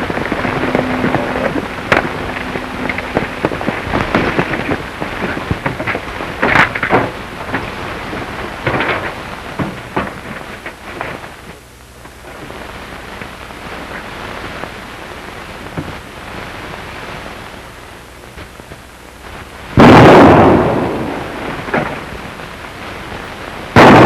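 Gunfire in a shootout: many scattered shots and cracks, then two much louder shots, one about twenty seconds in and one at the very end.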